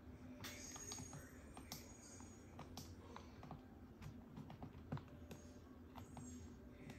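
Faint, irregular small clicks and taps, about a dozen scattered through, over a low steady hum.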